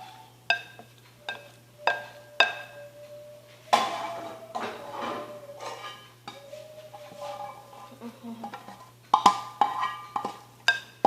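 A metal utensil knocking and clinking against a pan, with about ten sharp knocks that each ring briefly, bunched near the start and again near the end.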